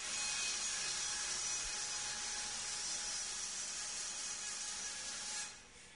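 A woodworking power tool running steadily with a high, hissing whir, then stopping abruptly about five and a half seconds in.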